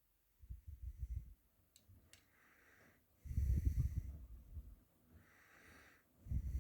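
Miele W1 front-loading washing machine in its wash phase, with the drum turning in bursts of about a second and a full load of cotton laundry tumbling. There are short, quieter pauses with a faint hiss between the bursts.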